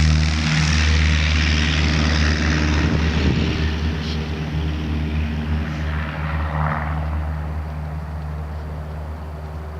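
Cessna Skyhawk's single propeller engine running at a steady, unchanging pitch, the sound fading gradually throughout.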